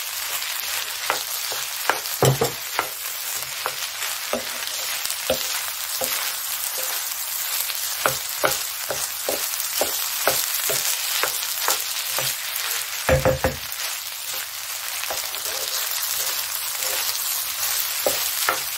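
Shrimp and egg fried rice sizzling in a frying pan as a wooden spatula stirs and tosses it, with frequent short scrapes and knocks of the spatula against the pan. Two knocks stand out louder, about two seconds in and about thirteen seconds in.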